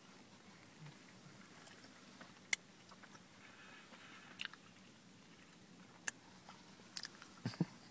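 Faint chewing and biting into a crispy fried-chicken burger, with a few sharp clicks and crunches scattered through.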